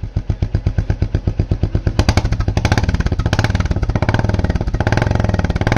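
Royal Enfield Classic 350 Reborn's single-cylinder engine idling through an aftermarket Indori exhaust, giving a steady, even, rapid beat of exhaust pulses.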